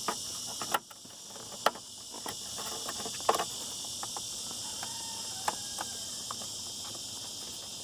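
Crickets chirping steadily, with a few sharp, irregularly spaced plastic clicks as a turn-signal flasher relay is handled and plugged into its socket.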